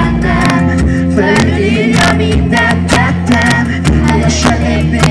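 Loud amplified live pop music: a male singer singing into a microphone over a band, with a steady bass line and regular drum hits.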